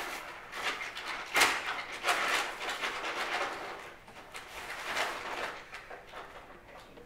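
Brown paper evidence bag rustling and crinkling in irregular bursts as a garment is pulled out of it, with a sharp crackle about a second and a half in.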